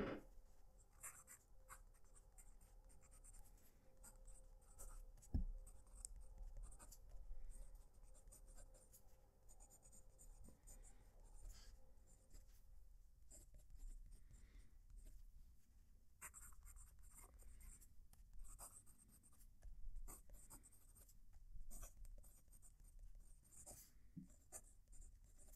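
Faint scratching of a Cross Bailey Light fountain pen's medium nib writing on Optik paper in short, irregular strokes, the nib giving a little feedback. A soft knock sounds about five seconds in.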